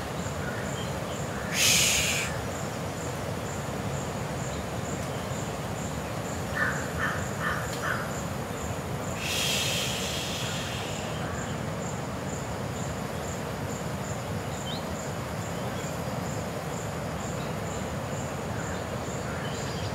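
Outdoor garden ambience: insects chirping in an even, repeating high pulse over a steady background hiss. A bird gives four quick short calls about seven seconds in, and two brief hissing bursts come about two seconds in and near ten seconds.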